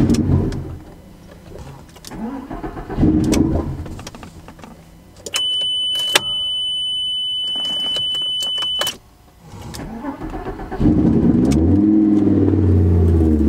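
Twin-turbo Lamborghini Gallardo's V10 fires up about eleven seconds in and runs loudly, the revs rising and falling. Before it come two brief low rumbles and a steady high beep lasting about three and a half seconds.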